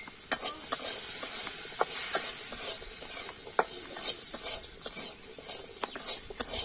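Diced potatoes frying in oil in a metal karai, a steady sizzle, while a metal spatula stirs them, scraping and clinking against the pan several times.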